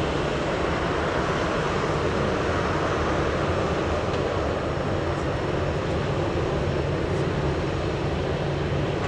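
Aircraft jet turbines running steadily: an even, constant noise with a low hum underneath.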